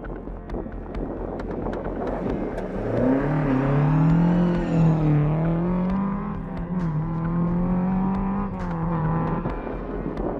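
Ford Escort Mk2 rally car engine revving hard as the car accelerates past. The engine note climbs from about three seconds in, dips briefly about seven seconds in like a gear change, holds high, then fades near the end.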